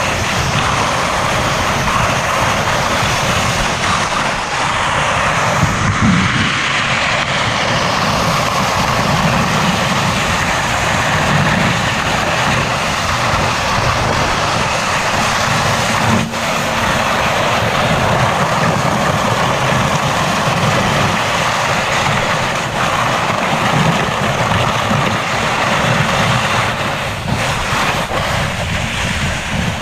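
A vehicle's engine running loud and steady while carrying the fishermen across the ice, a continuous low rumble under a broad rushing noise.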